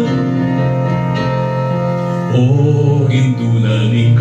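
Kapampangan Marian hymn: instrumental accompaniment with held chords between sung lines, then a singer's voice comes back in about two seconds in.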